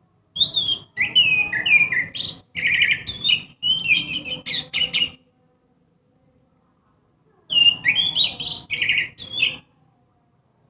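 Orange-headed thrush singing in a loud, full song with varied phrases. A run of quick, changing notes lasts about five seconds, then after a short pause a second, shorter burst follows.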